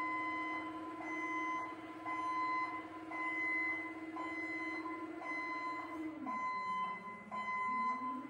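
Forklift working a lift with its warning beeper sounding about once a second over the steady running of its motor and hydraulics. The motor's pitch sags about six seconds in and comes back up near the end as the load changes.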